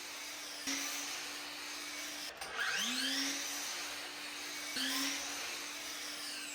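DeWalt DCS781 cordless mitre saw triggered three times about two seconds apart, its motor whining up to speed as it cuts moulding. A dust extractor, switched on by the saw's trigger, runs steadily underneath.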